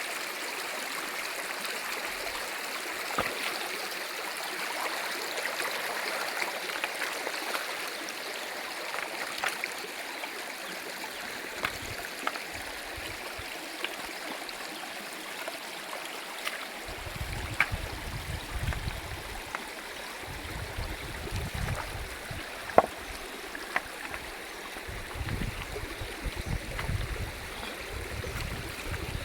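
A stream flowing steadily over rocks, with scattered small clicks. From a little past halfway, irregular low rumbling comes in underneath.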